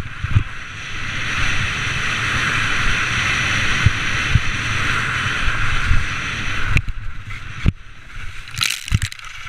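Skis sliding and scraping over firm, chopped-up snow, heard from a helmet-mounted camera with low wind rumble and a few sharp thumps over bumps. The steady scraping drops away about seven seconds in, then a short hiss of skis skidding near the end.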